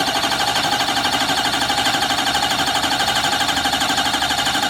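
Ford 6.0 Powerstroke V8 diesel turned over by its starter with the ignition off, so it cranks without firing: a steady, evenly pulsing cranking. This is a priming crank to fill the engine with oil before first start-up.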